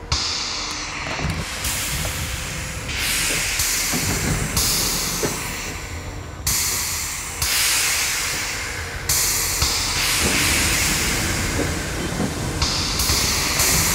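Soundtrack of Paris city sounds re-recorded underwater in the Seine: a low, muffled rumble under layers of hiss that cut in and out abruptly every second or two.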